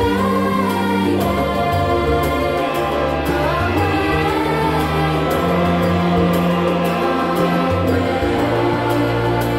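Background music: a choir singing over sustained low chords.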